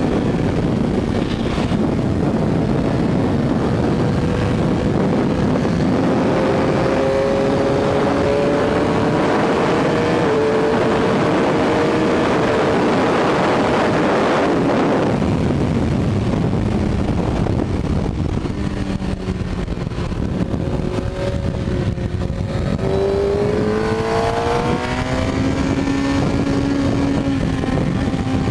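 Suzuki GSX-R K6 sportbike's inline-four engine accelerating hard under heavy wind rush, its pitch climbing, dropping at an upshift about a third of the way in, then climbing again. About halfway the wind noise eases as the bike slows, and near the end the engine pitch rises once more as it drives out of a corner.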